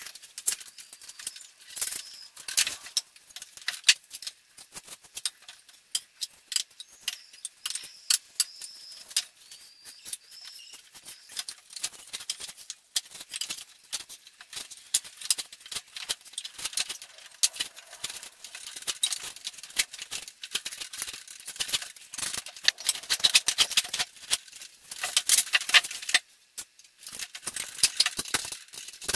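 Wooden bars of a Kentucky-style folding garden chair clacking and knocking against one another as steel threaded rods are pushed through them and the slatted assembly is lifted and folded. Irregular light clicks and rattles, with a brief quiet gap near the end.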